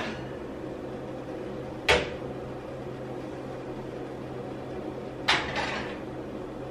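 Two sharp knocks about three and a half seconds apart, the first the louder and the second trailing a brief rattle: a glass baking dish being taken off the oven rack and set down on an electric coil stovetop. A steady low hum runs underneath.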